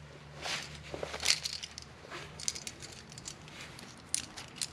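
A hand rummaging in a fabric dog bed and gathering loose clecos: soft fabric rustling with scattered light clicks of the small metal fasteners knocking together.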